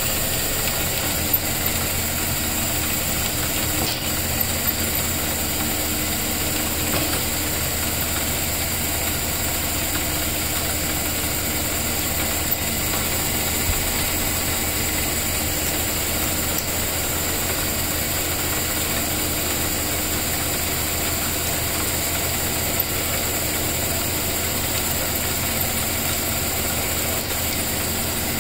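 Small metal lathe running steadily with its chuck spinning, a constant motor and drive hum. A few brief clicks.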